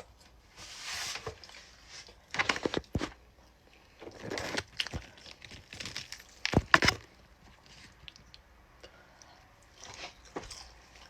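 Close-up eating: bites and chewing of fried chicken fingers, in bursts of crisp clicky crunching, the loudest about two and a half and seven seconds in, with quieter chewing between.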